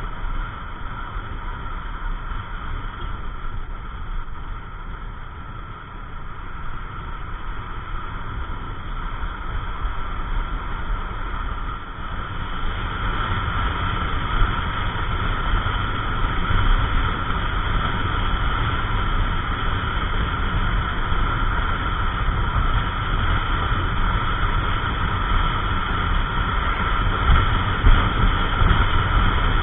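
Yamaha NMAX 155 scooter's single-cylinder engine running while riding at speed, mixed with wind rushing over the camera microphone. It gets somewhat louder after about ten seconds.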